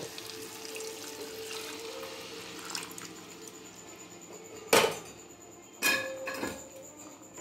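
The broth from boiling the chicken is poured into a clay pot of fried chicken masala, splashing and hissing over the hot masala for the first few seconds. About five and six seconds in come two sharp clanks of utensils against the pot.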